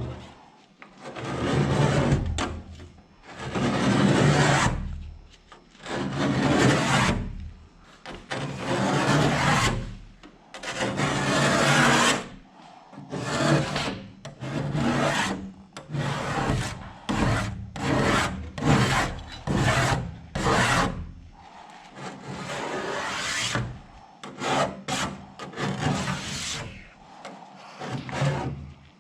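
Paint being scraped off a boat hull by hand in repeated strokes. The first strokes are long, about one every two to three seconds, and the later ones are quicker and shorter, about one a second.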